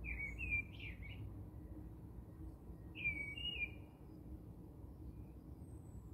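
A bird chirping: two short warbling phrases, one at the start and one about three seconds in, over a low steady rumble.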